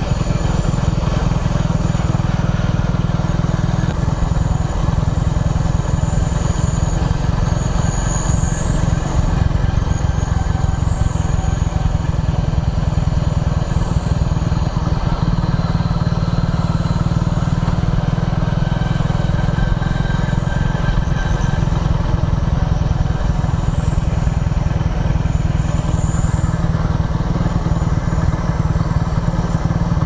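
Motorcycle engine running steadily at cruising speed, ridden along a road.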